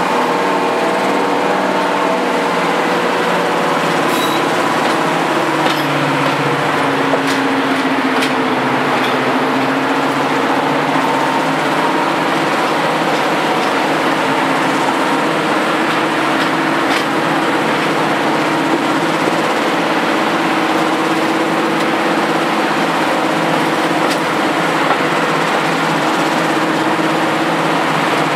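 Class 55 Deltic locomotive's Napier Deltic diesel engine working as the train pulls away, heard close behind the locomotive. It is running on only one of its two engines. The engine note shifts in pitch over the first ten seconds or so, then holds steady.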